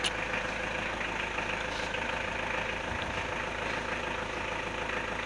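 A machine running steadily with a constant hum.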